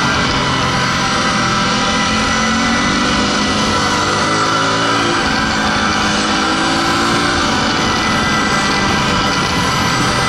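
Ducati Multistrada's L-twin engine running on the move through bends, its pitch rising and falling with the throttle, under a steady rush of wind noise.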